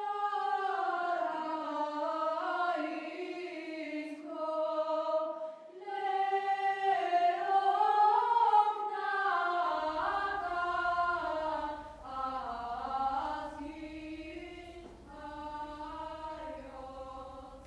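Wordless choir music: several held voices slide slowly between notes. A low hum joins underneath about ten seconds in.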